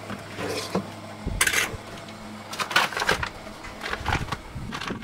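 A string of short clicks, knocks and rustles from hands handling kitchen things by a gas hob, with a paper bag being opened and rustled near the end.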